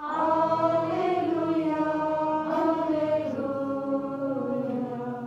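Voices singing a slow liturgical chant in long held notes, the melody slowly falling and fading near the end.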